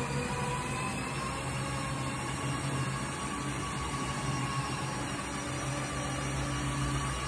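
Steady mechanical hum with a constant rushing hiss and faint whining tones from a running plumbing or heating installation, with no change over the few seconds.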